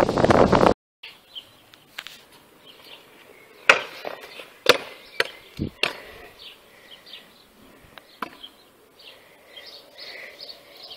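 About six sharp clacks of a freestyle stunt scooter's deck and wheels striking asphalt, most bunched together around the middle, with birds chirping faintly in the background. Before that, a loud rush of noise cuts off abruptly less than a second in.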